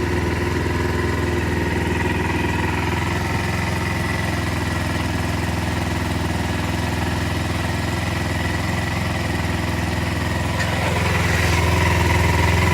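Motorcycle engine idling steadily, growing a little louder about eleven seconds in.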